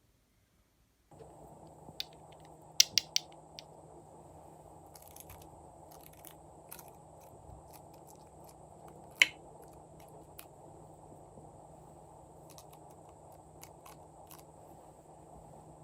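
Glossy slime being handled and mixed: scattered sharp clicks and small pops over a steady background hiss that starts about a second in. The loudest are a quick cluster of clicks about three seconds in and a single loud click about nine seconds in.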